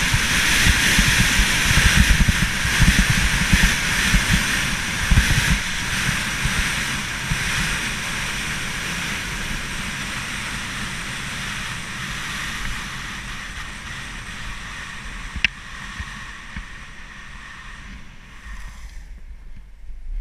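Wind buffeting a helmet camera's microphone while skis run over groomed corduroy snow, a rushing noise with a fluttering low rumble that fades steadily as the skier slows and drops away near the end. A single sharp click about fifteen seconds in.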